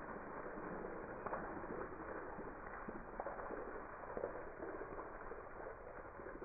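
Water from cut plastic bottles spilling off a tabletop and splashing onto grass, with a few faint knocks.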